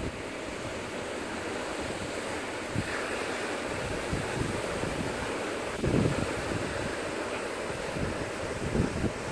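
Ocean surf breaking and washing over a rocky shoreline, a steady rushing noise. Wind buffets the microphone in gusts, the strongest about six seconds in and again near the end.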